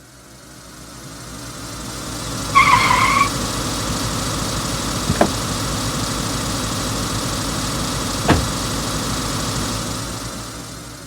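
Car driving sound effect: steady engine and road noise that fades in and fades out. About two and a half seconds in there is a brief pitched sound, then two sharp clicks a few seconds apart.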